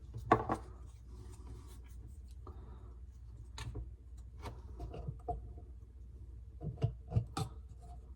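Hand-work handling sounds: a sharp knock about a third of a second in, scraping and rubbing, then a quick cluster of clicks and knocks near the end, over a steady low hum.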